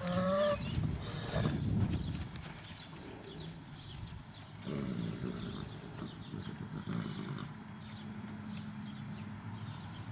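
A horse gives a short, high whinny with a wavering pitch at the start, followed by shorter calls and the scattered steps and shuffles of hooves.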